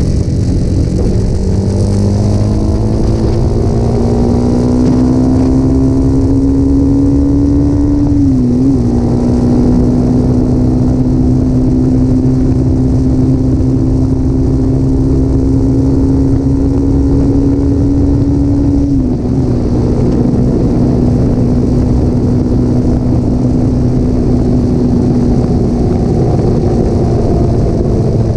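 Motorcycle engine running through a Scorpion aftermarket muffler, steady and loud. Its note climbs gradually for the first several seconds, then dips briefly twice, about a third and two-thirds of the way through, and holds level between the dips.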